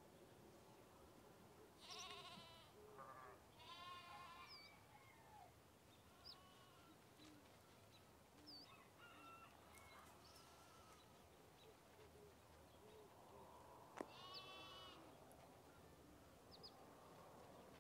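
Faint bleating of farm animals: a few wavering calls about two, four and fourteen seconds in, with short high bird chirps between them over a low steady hiss.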